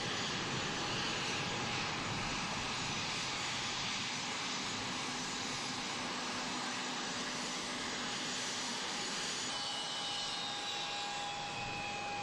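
Jet engines of a three-engine business jet running as it taxis, a steady rushing noise; a thin high whine joins in about three-quarters of the way through.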